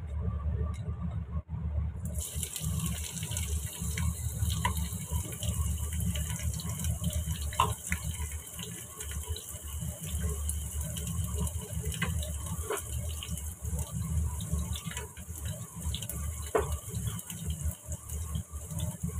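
Sliced shallots frying in hot oil in a wok: the sizzle starts suddenly about two seconds in and then runs as a steady hiss. A steady low hum lies beneath it, with a few faint utensil clicks.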